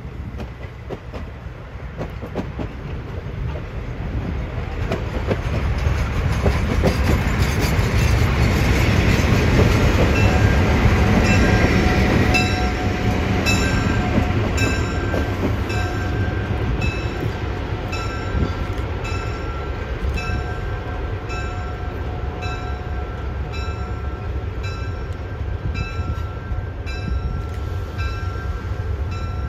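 Passenger train hauled by a Pennsylvania E8A diesel locomotive rolling past, with a steady low rumble of engine and cars that swells to its loudest about ten seconds in and then eases off. From about halfway through, a high ringing sound repeats about once a second over the rumble.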